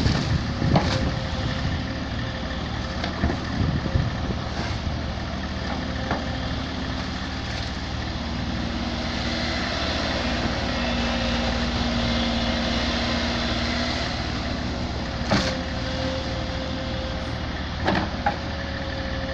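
SANY SY140 excavator's diesel engine running steadily, with a few sharp knocks and clanks scattered through.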